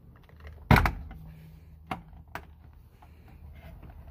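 Hands working the plastic horn pad and trim of a Nissan S13 steering wheel: a sharp thump about a second in, then two sharp clicks.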